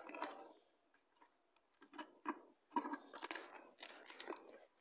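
Plastic parcel wrapping crinkling and rustling in short bursts as it is pulled and cut open with scissors, with small clicks.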